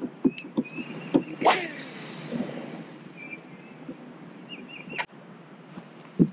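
A cast with a baitcasting rod and reel: about a second and a half in, a swish as the lure flies out and the line pays off the spool, the whir dropping in pitch as the spool slows. Scattered clicks and knocks of the reel and rod handling come before and after.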